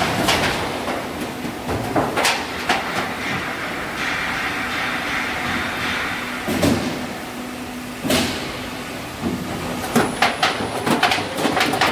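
Downpipe roll forming machine running: a steady mechanical hum with occasional sharp knocks, which come thick and fast near the end.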